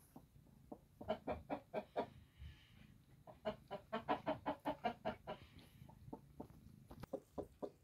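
Hen clucking in quick runs of short clucks, a burst at a time with pauses between: the low clucking a broody hen makes over a brood in the nest.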